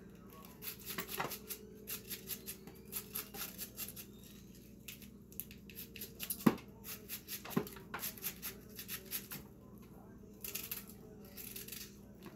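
A knife shredding a hand-held raw cabbage: quick, crisp cutting strokes a few times a second, irregular in rhythm, with two sharper clicks a little past the middle.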